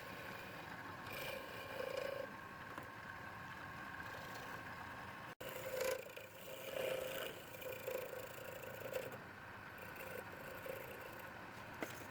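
Wood lathe running with a steady whine while a turning tool scrapes against the spinning wood in short, uneven bursts, with a brief break about five seconds in.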